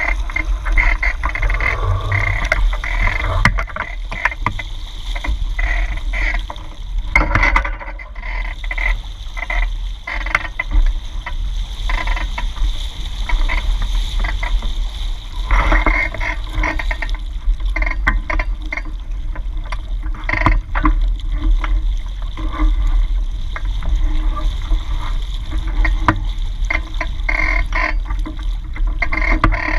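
Water rushing and splashing along a Hobie 16 catamaran's hulls as it sails, with steady wind rumble on the microphone and irregular slaps of small waves.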